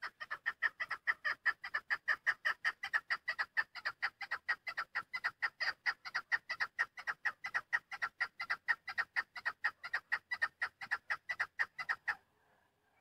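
Female chukar partridge calling: a long, even run of rapid clucks, about six a second, that stops suddenly near the end.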